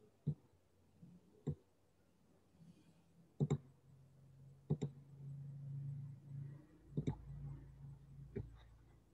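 Computer mouse clicking: single clicks and three quick double clicks, with a low hum coming in underneath partway through.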